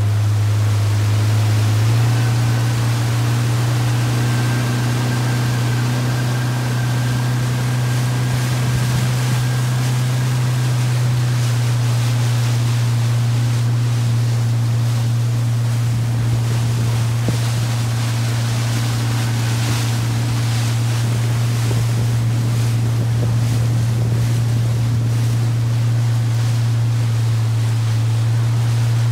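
Motorboat engine running steadily under way, a low hum that steps up slightly in pitch about two seconds in, over the rush of water and wind.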